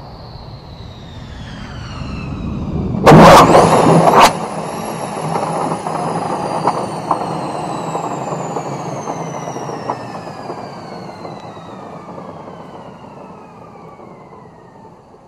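F-15E Strike Eagle's twin jet engines whining as the jet rolls down the runway after landing, the whine falling steadily in pitch and fading as it moves away. About three seconds in there is a loud blast of noise lasting just over a second.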